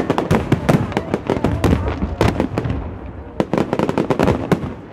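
Fireworks display: a rapid, irregular run of bangs and crackling from shells bursting overhead. It thins out after about two and a half seconds into a few separate louder bangs.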